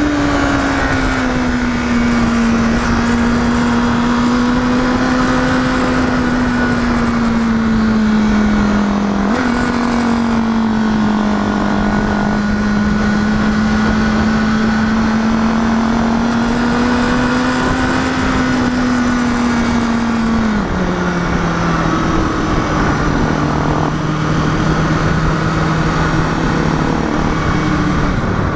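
Sport motorcycle engine running at steady cruising revs under a steady rush of wind. The engine note jumps up sharply about nine seconds in, then settles back. About twenty seconds in it drops to lower revs and stays there.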